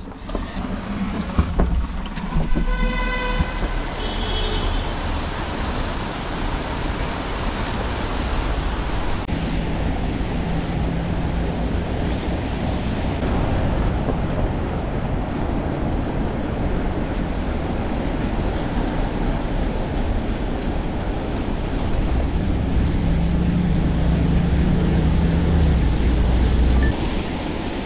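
Wind rushing over the microphone together with traffic and the hiss of wet road, heard from a bicycle riding through city streets in the rain. A short pitched tone sounds about three seconds in.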